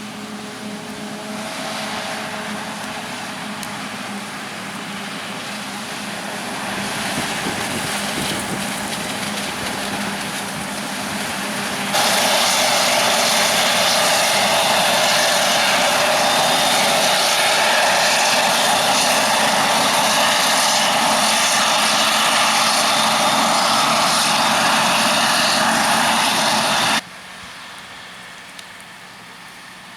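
Farm machinery at work in a maize harvest: tractor and forage harvester engines running steadily, growing louder over the first dozen seconds. A much louder, steady machine noise then cuts in suddenly, holds for about fifteen seconds and cuts out just as suddenly, leaving quieter engine noise.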